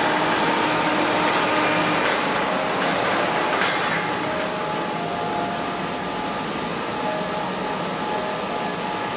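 Jet airliner engines running: a steady rushing noise with faint whining tones, easing slightly about four seconds in.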